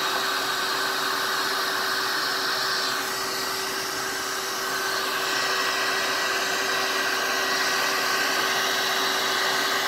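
ReDeTec Protocycler filament recycler running: a steady mechanical whir with a constant hum underneath. A high whine fades out about three seconds in and comes back a couple of seconds later.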